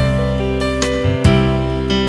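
Gentle instrumental background music, struck notes in a slow steady rhythm over held tones.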